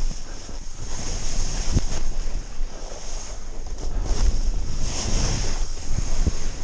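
Snowboard sliding and carving down a snowy track, its base and edges hissing and scraping over the snow, with wind buffeting the action camera's microphone. A couple of short thumps come about two seconds in and again near the end.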